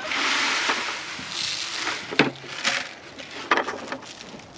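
Leftover chicken feed pouring out of an upturned plastic 5-gallon bucket feeder onto the ground: a rushing hiss that starts at once and tapers off over about two seconds. A few short, sharp sounds follow.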